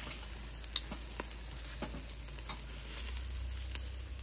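Chicken legs, sausages and pork chops sizzling over hot charcoal on a kettle grill, with scattered sharp clicks and crackles as metal tongs turn the chicken on the wire grate.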